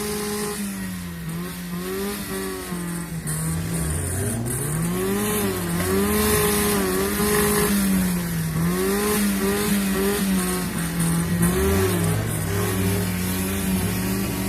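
Fiat car engine revved hard over and over, its pitch climbing and dropping back every second or two.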